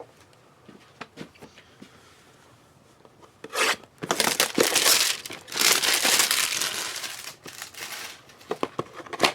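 Trading card packaging being opened: light handling clicks, then a few seconds of loud crinkling and tearing of the wrapper, then a few handling clicks again.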